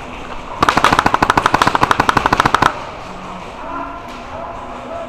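Airsoft gun firing a full-auto burst: a rapid, even string of sharp clacks, about fourteen a second, lasting about two seconds and starting just over half a second in.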